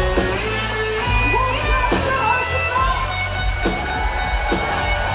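Live blues band playing an instrumental break: slide guitar notes gliding up and down in pitch over bass and a steady drum beat.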